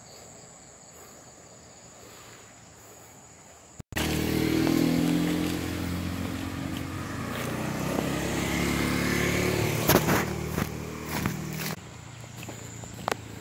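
Faint steady high-pitched insect drone, then about four seconds in a motorcycle engine running close by, loud for about eight seconds before falling away near the end.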